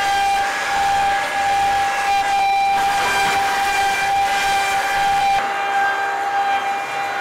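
CNC router spindle running with a steady high-pitched whine as its bit carves into a wooden panel, over the hiss of the cut. The lower rumble drops away about five seconds in.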